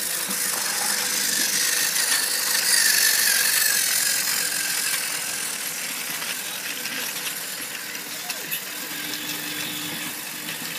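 Battery-powered Tomy Plarail toy train's small motor and gears whirring as it runs along its plastic track, growing louder to a peak about three seconds in, then slowly fading.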